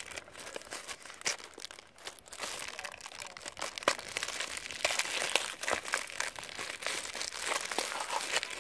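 Thin clear plastic bag crinkling and crackling as a box is slid out of it, a dense run of small sharp crackles.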